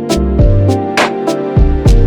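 Background music with a steady beat: held and plucked instrument notes over a regular kick drum and sharp cymbal or hi-hat hits.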